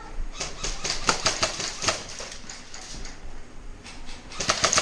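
Airsoft guns firing in quick, irregular sharp cracks: about a dozen over the first two seconds, then a fast cluster of shots near the end.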